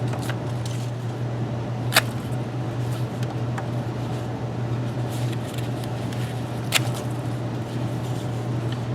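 An Ontario RAT II folding knife's blade slicing through nylon webbing, with two sharp snaps, one about two seconds in and one near seven seconds, over a steady low hum.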